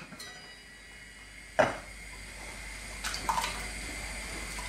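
A stainless steel saucepan lid clinks once as it is set down, then diced potato cubes drop into the pot of water with a few small splashes and clicks about three seconds in. A steady low hum runs underneath.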